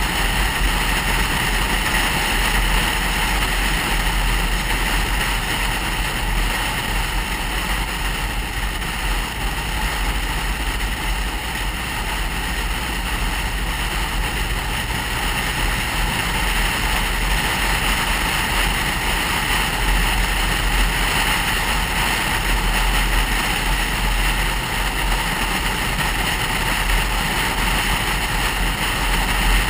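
Steady engine hum and tyre and wind noise of a car driving at road speed, heard from inside the cabin, with a constant deep rumble underneath.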